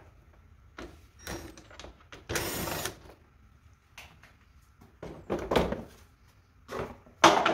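A cordless driver runs once for about half a second, backing a screw out of the plastic rear cover of a Ryobi 480e riding mower. Around it are knocks and rattles of the hard plastic cover being worked loose and lifted off, with the loudest knock near the end.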